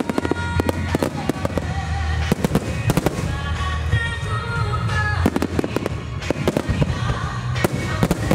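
A wide starmine fireworks barrage: many sharp bangs of shells launching and bursting in quick succession, several a second and densest about a third and two-thirds of the way through, over music with sustained tones.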